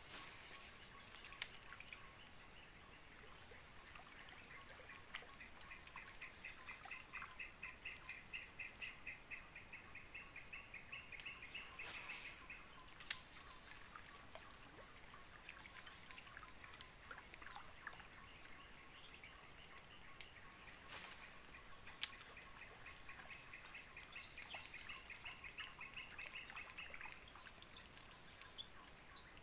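Steady high-pitched drone of tropical forest insects, with a rapid pulsed trill in two long stretches and a few isolated sharp clicks.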